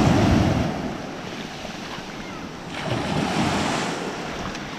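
Small shore-break waves breaking and washing up over sand. The wash surges at the start and again about three seconds in.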